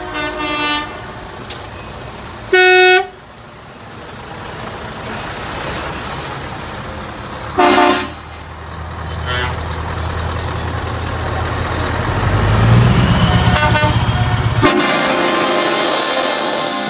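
Heavy trucks in a passing convoy sounding their horns in about five short toots, one a few seconds in the loudest. A low diesel engine rumble builds as a truck comes close, then cuts off sharply near the end into a broad rush of noise.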